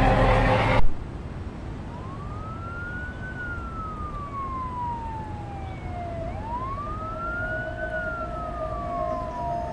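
A siren wailing over a low rumble, in two slow cycles, each climbing for about a second and a half and then sinking for about three. A loud sound before it cuts off abruptly less than a second in, and a steady tone joins about six seconds in.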